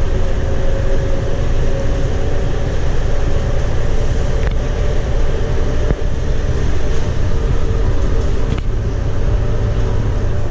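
Cabin noise of a Scania K230UB bus on the move, its 8.9-litre five-cylinder DC9 diesel and ZF six-speed automatic heard from inside: a steady low engine and road rumble with a steady whine over it. Two light knocks sound about four and a half and eight and a half seconds in.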